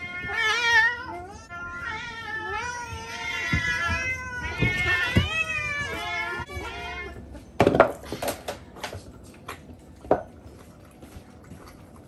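Several house cats meowing at once, many overlapping, wavering calls, as the hungry cats crowd round for food. The meowing stops about seven seconds in, followed by a few sharp knocks and then faint ticks.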